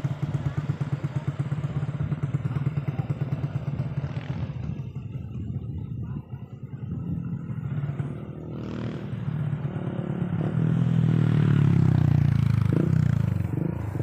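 A motorcycle engine running, with a low, rapidly pulsing hum. It drops away about five seconds in, then grows louder again and is loudest about eleven to twelve seconds in.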